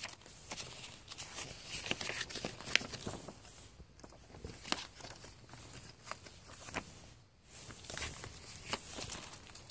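A folded paper leaflet rustling and a plastic DVD case clicking as they are handled, with scattered light clicks and taps throughout.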